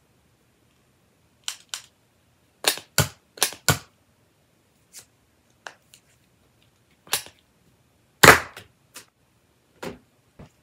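Sharp plastic clicks and snaps of a Nerf Elite 2.0 Ace dart pistol being loaded and primed by hand, several coming in quick pairs, with the loudest single snap about eight seconds in.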